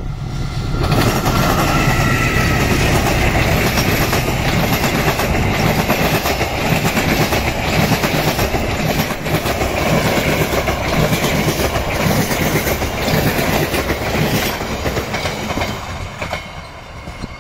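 Diesel-electric locomotive and stainless-steel passenger coaches passing close at speed on a curve: a loud steady rumble with the wheels clicking over rail joints and a faint high wheel squeal. The sound falls away near the end as the last coaches go by.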